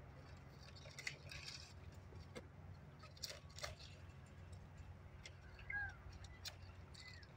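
Faint machete chops into a pile of fleshy leaves: a handful of separate sharp strikes a second or more apart.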